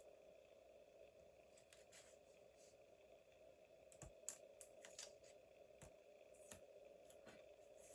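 Faint scattered snips and clicks of hands working with paper and washi tape, over a steady low hum of room tone.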